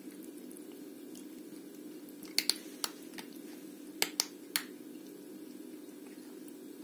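A cat crunching a piece of dry, uncooked pasta: sharp, crisp cracks in two short bursts, three of them about two and a half seconds in and three more about a second and a half later.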